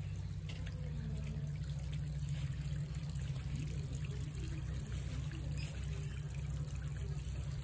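Shallow water trickling over a wet concrete path and along timber edging, over a steady low rumble.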